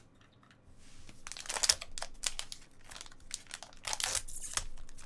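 Blue metallic foil trading-card pouch crinkling and being torn open by hand. A quick run of sharp crackles starts about a second in.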